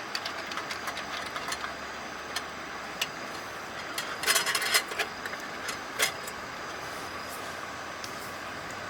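Wood campfire crackling: scattered sharp pops and snaps over a steady rushing hiss, with a quick cluster of pops about four seconds in and one loud pop about six seconds in.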